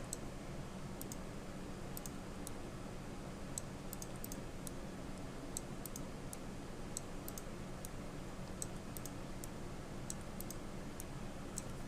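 Light, irregular clicks of a computer mouse and keyboard, a few a second, over a steady low hum.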